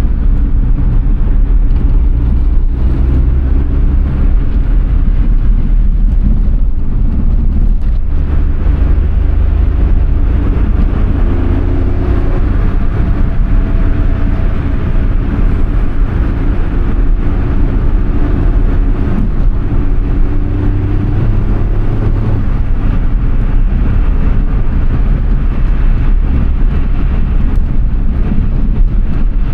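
Suzuki Alto Works HA11S kei car driving, its engine and road noise heard from inside the car; the engine pitch rises and falls as speed changes partway through, over a steady low rumble.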